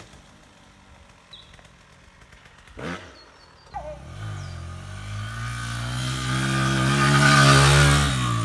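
Dirt bike approaching and passing. Its engine note comes in about halfway through and builds to its loudest near the end, then drops a little in pitch as it goes by.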